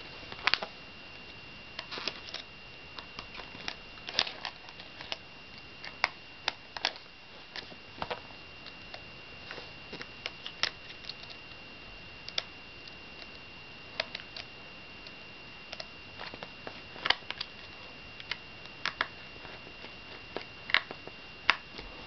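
Scattered small clicks and taps of hands handling a MacBook's underside and open battery bay, over a faint steady high-pitched whine.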